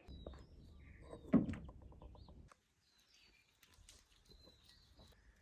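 Birds chirping faintly, with a single loud thump about a second and a half in. The sound cuts out briefly partway through, then faint chirps go on.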